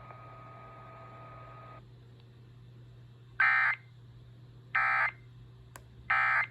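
EAS end-of-message data bursts from a NOAA Weather Radio test: three identical short, harsh digital squawks about a second and a half apart, signalling the end of the alert message. Before them a faint steady hum stops about two seconds in.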